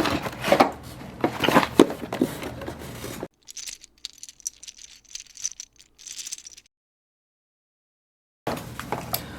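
A LEGO set's cardboard box being torn open, with bags of plastic pieces rattling and crinkling. The sound is busiest in the first three seconds, turns to soft crinkling, then drops to dead silence for a couple of seconds before the rustling comes back near the end.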